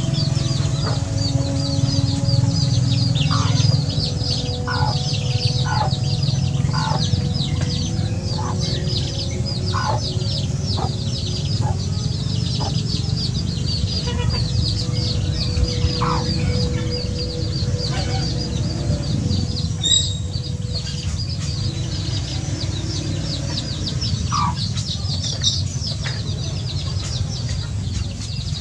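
Flock of young chickens foraging, with a constant run of quick high peeps and scattered short clucks, over a steady low hum.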